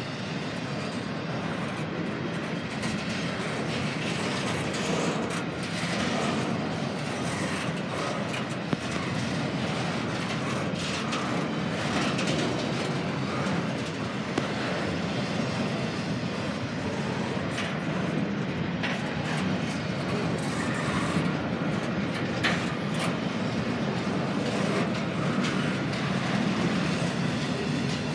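Double-stack freight cars rolling past, a steady rumble of wheels on rail with scattered sharp clicks.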